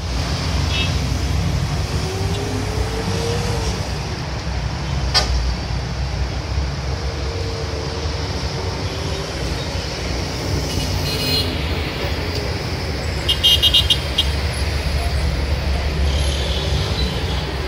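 Steady rumble of heavy traffic on a busy multi-lane city road below, with car horns tooting now and then. The loudest is a quick run of short toots about three-quarters of the way through. There is also a single sharp click about five seconds in.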